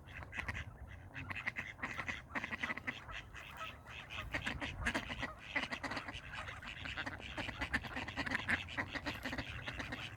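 Ducks fighting, quacking in a rapid, continuous chatter of short calls.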